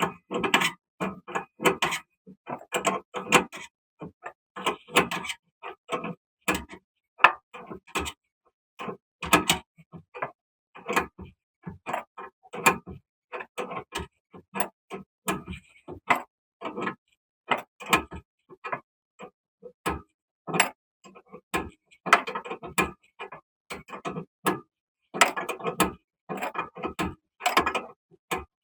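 Hand socket ratchet clicking in quick runs of back-strokes, again and again, as the nut of a rear stabilizer link is run down.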